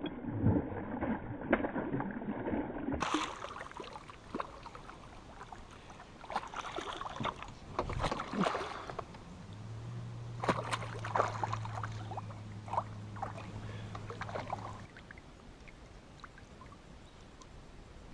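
Paddle and water sounds in a canoe, with scattered knocks of gear against the hull. A low steady hum comes in partway through and stops about five seconds later.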